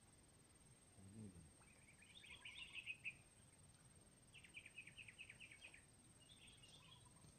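Faint bird calls: two rapid trills of repeated high chirps, about eight a second and each a second or more long, then a shorter chirping call near the end.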